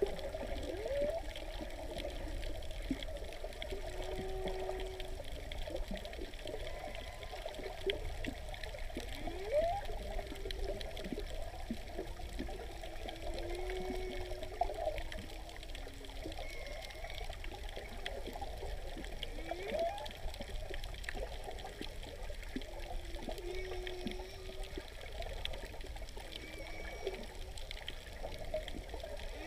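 Humpback whale song recorded underwater: rising whoops every few seconds and held low moans, with fainter higher cries between them, over a steady underwater hiss.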